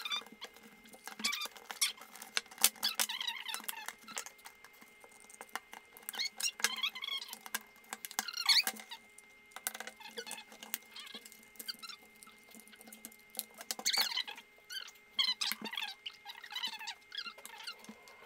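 Screwdriver backing screws out of a smoke alarm's plastic housing and the plastic case being worked apart: irregular squeaks, creaks and clicks in short clusters.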